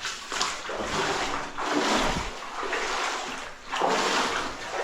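Water splashing and sloshing in about four surges, each about a second long.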